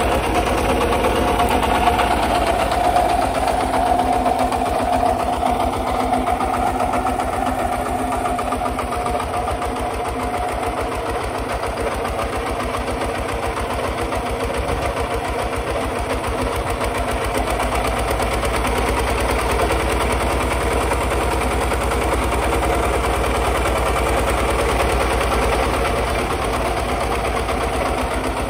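Kubota RT140 single-cylinder diesel engine of a walk-behind two-wheel tractor running steadily under load while ploughing, with a fast, even beat.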